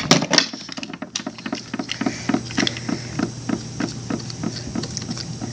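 Toy carabiner clip on a Bop-It keychain being snapped open and shut over and over: a run of small plastic clicks, about four a second.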